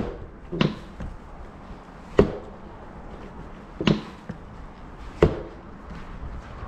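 Hinged seat of a Honda Super Cub 110 Pro being lifted and shut by hand, clunking down onto its newly fitted seat-fixing bracket: about five sharp knocks a second or two apart.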